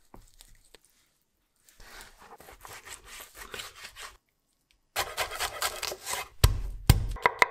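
Kitchen knife cutting on a cutting board. First come softer rubbing strokes as raw chicken thigh is cut and handled. After a short pause there are quick knife strokes on a wooden board, growing into louder, heavier knocks near the end.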